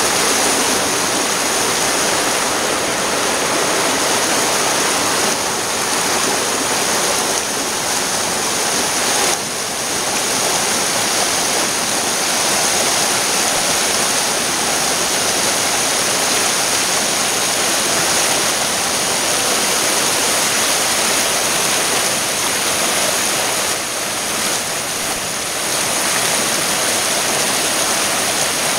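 Shallow mountain creek rushing over rocks in small rapids, a loud, steady wash of water close by.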